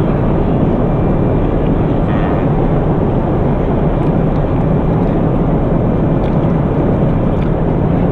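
Steady cabin noise of an airliner in flight, a constant low rush of engine and airflow.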